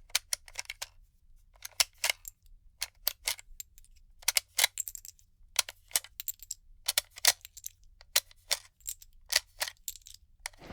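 Irregular clusters of sharp clicks and ticks over a faint low hum.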